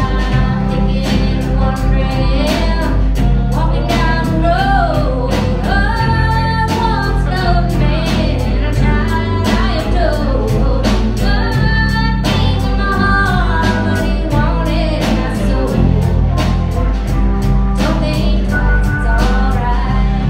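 Live band playing loud amplified rock with electric guitars, keyboard and a drum kit keeping a steady beat, with a voice singing a gliding melody over it.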